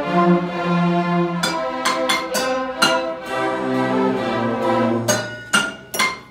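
A school string orchestra of violins and cellos playing, with held notes and a moving cello line. Sharp knocks punctuate the music, several in quick succession near the end, before it breaks off.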